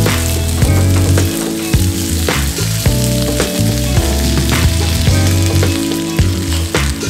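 Chicken feet sizzling and frying in a hot pan, under background music with a steady beat and bass notes.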